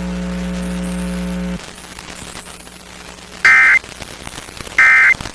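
A steady low electronic buzz that cuts off about a second and a half in, then faint static hiss, then two short data bursts of warbling high tones about a second and a half apart: the Emergency Alert System end-of-message (EOM) code sent at the close of the required monthly test.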